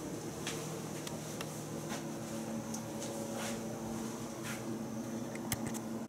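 A steady low machine hum with several even tones, and a few faint clicks and taps scattered through it.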